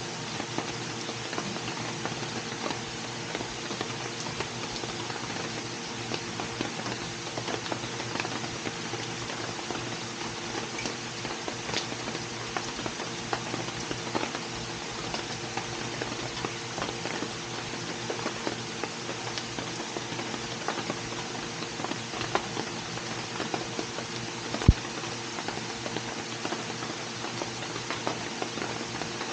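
Rain pattering steadily, a dense spread of small drop ticks, over a steady low hum. There is one sharp knock near the end.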